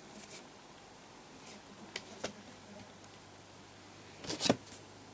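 Handling noise from cardboard firework tubes and packets: a few light clicks and taps as they are turned and moved in the hand, then a louder short clatter of knocks about four and a half seconds in.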